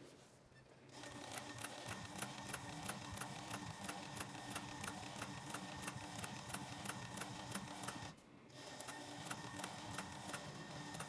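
Juki 1508 walking-foot leather sewing machine stitching vegetable-tanned leather at a slow, even pace, each stitch a tick, about three a second. It stops for about half a second a little after eight seconds in, then starts stitching again.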